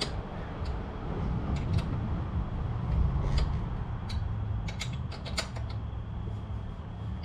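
Hand tools tightening the mounting bolts of a motorcycle rear rack: scattered clicks and creaks over a steady low rumble.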